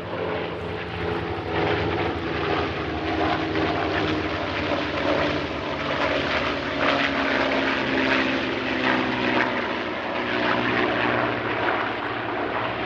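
P-51D Mustang's Packard Merlin V-12 engine and propeller droning through a low pass, swelling in loudness about a second and a half in and then holding steady.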